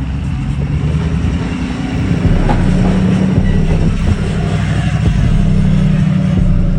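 A vehicle driving on the road, engine drone under tyre and road noise, the engine tone rising a step and getting louder about two seconds in.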